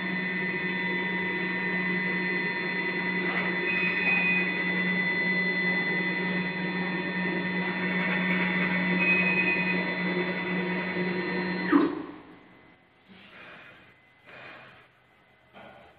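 Automatic bottle filling machine running with a steady hum. The hum stops abruptly with a click about twelve seconds in, leaving only faint short puffs of noise.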